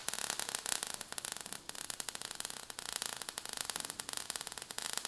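Crackling, hissing sound effect of burning and showering sparks: a dense, fast crackle with most of its energy in the upper range.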